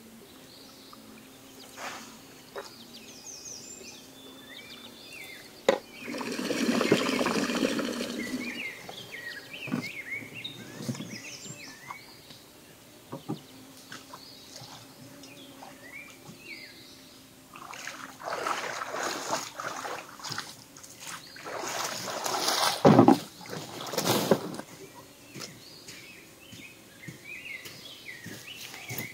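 A canoe coming ashore on a rocky lakeshore: water sloshing and the hull scraping and bumping against rock and shore in several bouts, the loudest about six seconds in and again past the middle. Small birds chirp faintly throughout.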